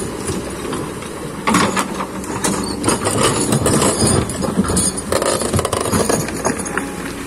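Hydraulic excavator working: its diesel engine runs steadily while the bucket digs through stones and mud, with repeated knocks and scrapes starting about a second and a half in.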